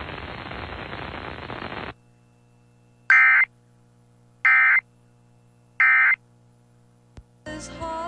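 AM radio hiss that cuts off about two seconds in, then three short bursts of Emergency Alert System End-of-Message data tones, about a second apart, marking the end of the alert. Near the end a click, and music starts.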